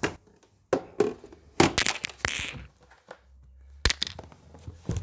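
Handling noises as parts are taken out of their packaging: a scatter of sharp knocks and clicks, with a short rustle about halfway through.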